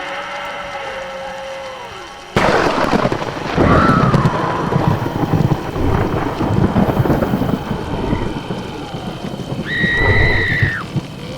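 Sound-effect thunderstorm: a sudden thunderclap about two seconds in, followed by rolling thunder over steady rain. Near the end a high, drawn-out cry rises above the storm and falls away at its close.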